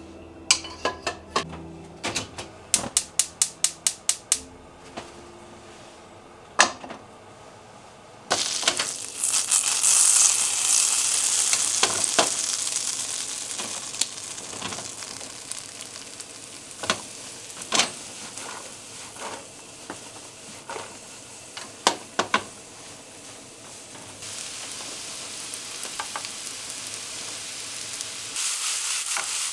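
A quick run of sharp clicks, then butter starts sizzling in a hot frying pan about eight seconds in. Eringi, shimeji and maitake mushrooms are then tipped in and fry with a steady sizzle, with occasional knocks against the pan.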